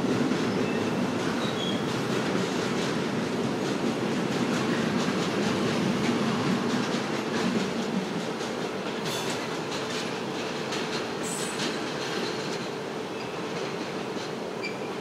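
Container freight train wagons rolling past, a steady rumble with clicking wheel clatter and short high-pitched wheel squeals around the middle. The sound eases off near the end as the last wagons go by.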